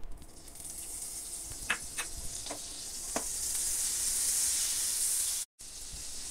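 Butter melting in hot oil in a non-stick frying pan, sizzling and growing louder as it foams, with a few light clicks in the first half. The sound cuts out briefly near the end.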